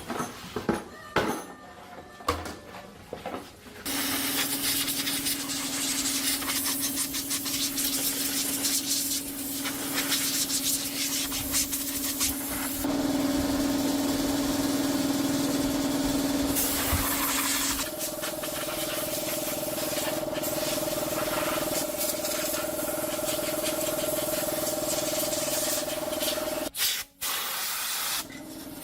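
A few knocks and clicks, then a motor-driven workshop tool starts and runs with a steady, loud hiss over a humming tone. The tone steps up in pitch about two-thirds of the way through and drops out briefly near the end.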